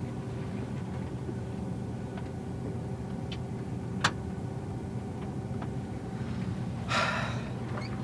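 Combine engine running steadily, heard from inside the cab. A sharp click about four seconds in, a few fainter clicks, and a brief rustle shortly before the end.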